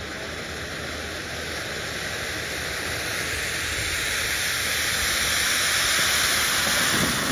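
A ground fountain firework hissing as it sprays sparks, a steady rushing hiss that grows louder and is loudest near the end.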